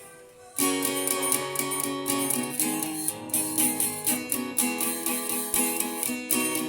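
Strummed acoustic guitar music, starting suddenly about half a second in and going on with a regular strumming rhythm.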